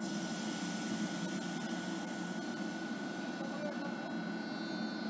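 Locomotive-hauled passenger train approaching slowly: a steady low rumble with a hiss and a constant high tone, joined near the end by several thin, high whining tones.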